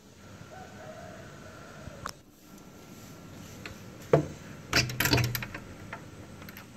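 A door lock and handle being worked by hand: a sharp click about four seconds in, then a loud cluster of metallic clicks and rattles as the door is unlocked and opened. Near the start a rooster crows faintly in the distance.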